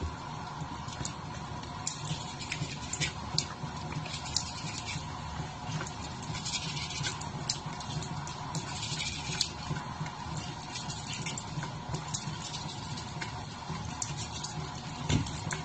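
A cat's teeth being brushed: many short, scratchy clicks of the brush at its mouth, over a steady hum that starts at the very beginning.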